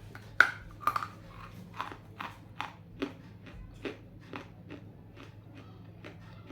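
A chunk of half-roasted Nakumatt edible clay is bitten with one loud sharp crunch about half a second in, then chewed with a run of crisp crunches about twice a second that grow fainter.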